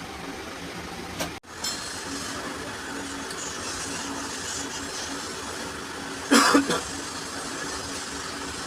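Steady mechanical hum with a momentary cut-out about a second and a half in. About six seconds in comes a short, loud burst of hissing noise in two quick parts.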